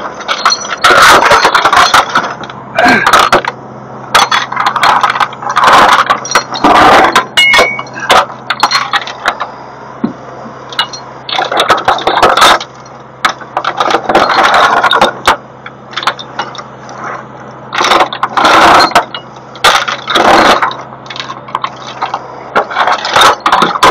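Engine idling with a steady hum under repeated, irregular loud bursts of metal clanking, rattling and scraping as chains and burnt wreckage are handled.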